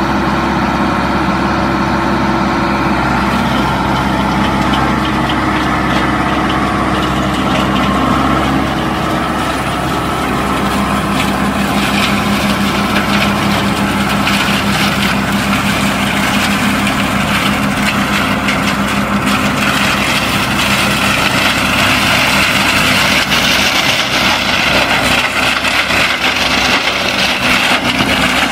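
John Deere 5420 tractor's diesel engine running steadily under load, driving a Vigolo TST-250 mulcher rotor. From about ten seconds in, a dense crackling and clattering of dry woody scrub being shredded by the rotor builds over the engine and grows louder near the end.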